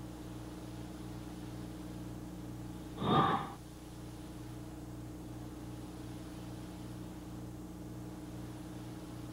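Steady low hum and hiss from the blank stretch of an old VHS tape. About three seconds in there is one short, breathy noise lasting about half a second.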